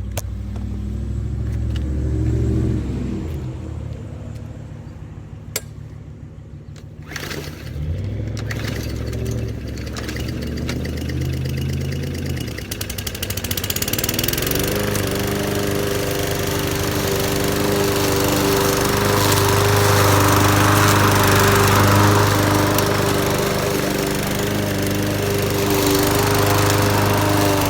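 A Hyper Tough gas walk-behind lawn mower running. For the first dozen seconds the engine note is low and uneven, with a few sharp clicks. About halfway through the engine speeds up with a rising pitch and settles into a steady, louder run with grass-cutting hiss.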